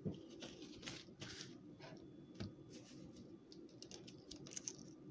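Faint, irregular small clicks and crackles of eggshell being peeled from a hard-boiled egg by hand, with a few light taps as the egg is handled on the counter.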